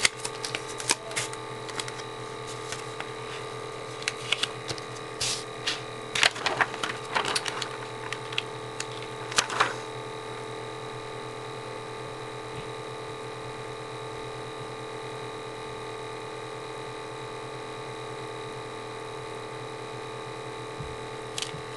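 Sticky vinyl and transfer tape being handled and peeled, giving scattered clicks and short crackles through the first half and one more click near the end, over a steady electrical hum.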